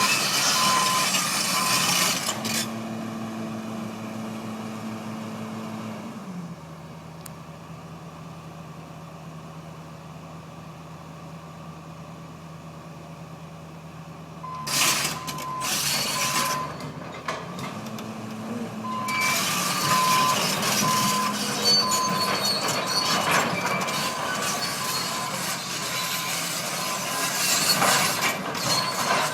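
Heavy truck engine running, its pitch dropping about six seconds in, with a back-up alarm beeping at the start and again in the second half. Loud bursts of machinery noise fill the second half.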